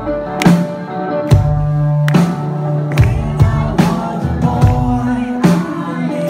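Live indie rock band playing: two electric guitars, bass and a drum kit keeping a steady beat, with a male lead voice singing.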